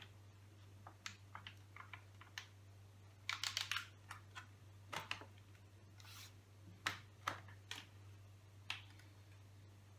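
Computer keyboard being typed on in scattered, irregular keystrokes, with a quick run of keys about three and a half seconds in. A steady low hum runs underneath.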